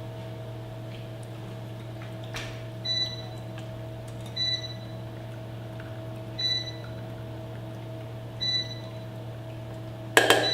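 Four short, high electronic beeps from a kitchen appliance, roughly two seconds apart, over a steady low hum. Near the end comes a loud clatter of metal kitchenware, a pan or sieve being handled.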